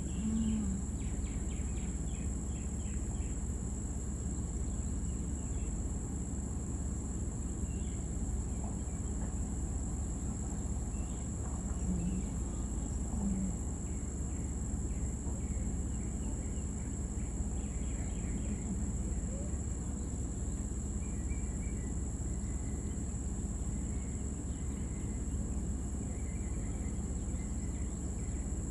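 Rural outdoor ambience: insects droning steadily at a high pitch, with scattered short chirps and a steady low rumble underneath.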